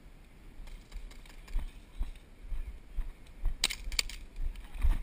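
Footsteps on dry, packed dirt, thudding about twice a second as the wearer moves, with a quick cluster of sharp airsoft gun shots about three and a half seconds in.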